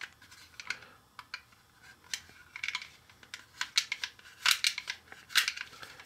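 Small plastic pick scraping and clicking inside the hard plastic hair-extruder of a Play-Doh pony toy while stuck Play-Doh is dug out of it: a run of irregular light clicks and scratches.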